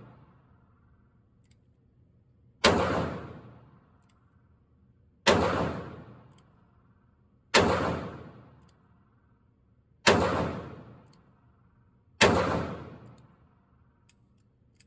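Five shots from a .38 Special snub-nose revolver, a Rock Island Armory Model 206, fired about two to two and a half seconds apart. Each report dies away in an echo lasting over a second.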